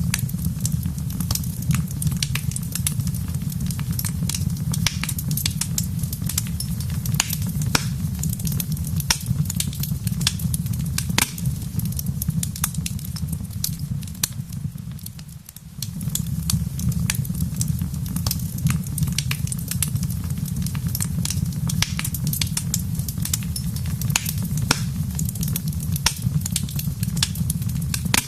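Wood fire crackling, with frequent sharp pops and snaps over a steady low rumble. The sound dips briefly about halfway through.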